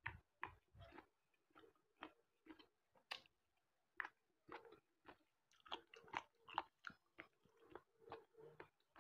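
A person chewing food close to a clip-on microphone: irregular wet mouth clicks, roughly two a second.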